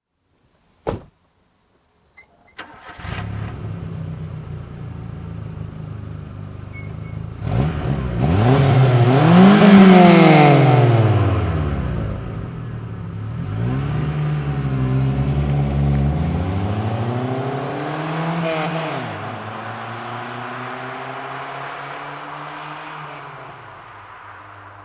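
A 1994 Volkswagen Golf Mk3's 1.8-litre four-cylinder petrol engine on its factory exhaust: a short knock about a second in, then the engine starts and idles, is revved up and back down a couple of times, the first time the highest, and settles back to idle.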